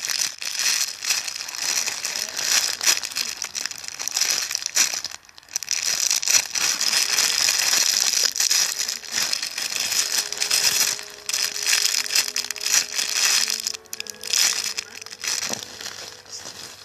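Squishy toy being squeezed and handled, with dense crinkling and crushing of plastic. Faint steady tones join in the second half.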